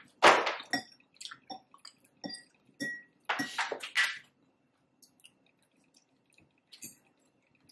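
Close-up eating sounds: someone chewing and crunching a mouthful of taco salad in irregular bursts, with small clicks. The loudest crunching comes about a quarter second in and again around three and a half seconds in, then it thins out to a few soft clicks.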